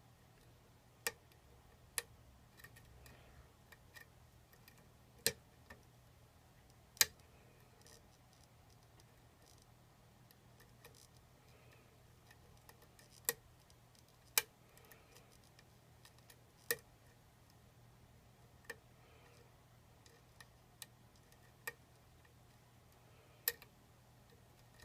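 Hook pick and tension wrench working the pins of a pin-tumbler challenge lock: a dozen or so sharp metallic clicks at irregular spacing, over a faint steady hum.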